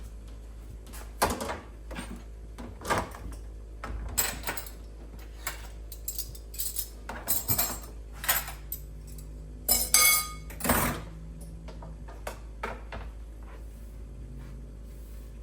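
Kitchen clatter of pots, pans and utensils: irregular metal knocks and clinks, the loudest with a brief ringing about ten seconds in.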